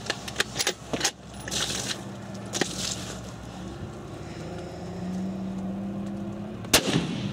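A few sharp metallic clicks in the first second, then a steady low hum, and one sharp rifle shot near the end.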